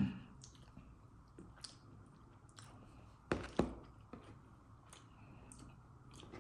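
A person chewing food, with scattered soft wet mouth clicks and two sharper, louder clicks about three and a half seconds in.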